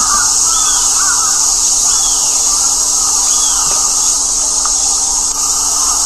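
Outdoor woodland ambience: a steady high-pitched hiss, with short falling high bird calls repeating about every second and a half. Fainter crow calls come near the start.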